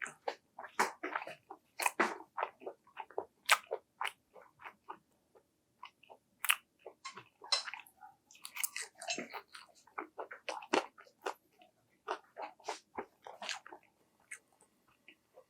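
Crispy fried dumplings being bitten and chewed close to the microphone: a string of irregular sharp crunches and crackles of the fried wrapper, a few per second, with a short pause about five seconds in.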